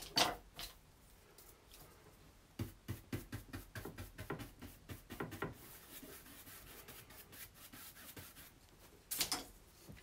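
Paintbrush scrubbing and dabbing paint onto a primed board: a quick run of short scratchy strokes, about five a second, starting near three seconds in, then softer rubbing, with a louder scrape near the end.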